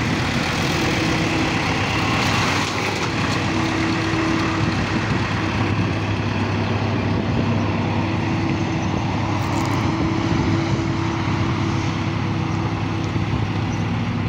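Diesel engines running steadily, a Bobcat skid-steer loader's among them, the engine speed shifting slightly now and then.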